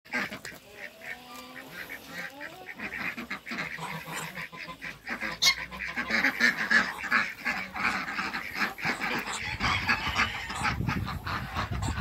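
Mixed backyard poultry flock calling: geese honking among duck and other fowl calls, many overlapping calls and short clucks at once, growing louder about halfway through.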